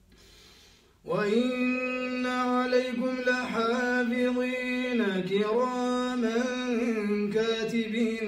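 A man chanting Quranic recitation in a slow, melodic tajweed style, drawing out long held notes with small ornamental turns in pitch. It starts suddenly about a second in, after a brief pause for breath.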